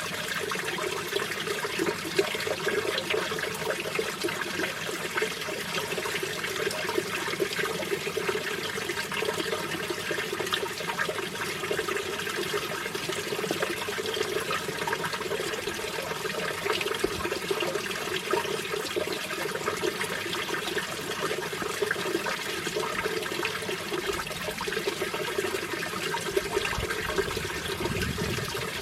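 Mountain stream water rushing and splashing over rocks, a steady, unbroken flow with a low rumble briefly near the end.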